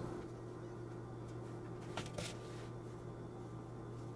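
Quiet kitchen room tone with a steady low hum, and a couple of faint, brief crackles about two seconds in as slices of cheddar are pressed against the crust inside a hollowed bread bowl.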